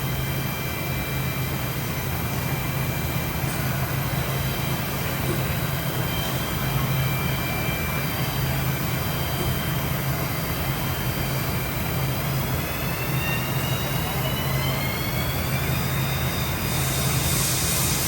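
Parpas Diamond 5-axis gantry machining center running with a steady hum; from about two-thirds of the way in, a high whine rises in pitch as the spindle speeds up, and a hiss starts near the end.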